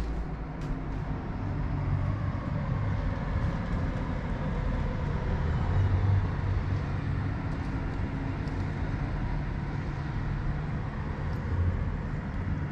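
Steady low rumble of city traffic coming through an open window.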